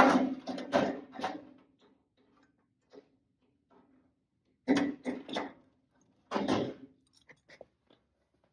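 Sheet-metal patch panel being laid onto the car's fender and clamped in place: three short bursts of metal rattling and scraping as it is handled, then a few light clicks near the end.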